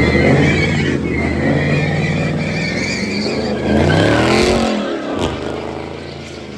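Car engine held at high revs with tires squealing, as in a burnout or donut. The engine climbs in pitch about four seconds in, then eases off and fades away.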